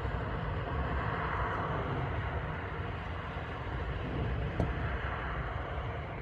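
Steady outdoor urban background: a low traffic rumble and even noise, with one short click about four and a half seconds in.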